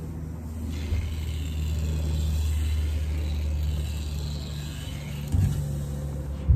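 Industrial sewing machine running, stitching fabric: a steady motor hum that swells about a second in and eases off after about four seconds. A knock about five seconds in.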